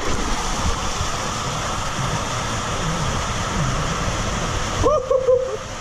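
Rushing water in an enclosed water-slide tube, heard from a rider's own camera as they slide down: a steady loud hiss of water. Near the end comes a short squeal that rises and falls in pitch.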